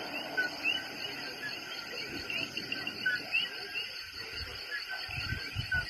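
Night chorus of Puerto Rican coquí frogs, many calling their short rising two-note "co-kee" over one another above a steady high insect hum. A few low thumps come near the end.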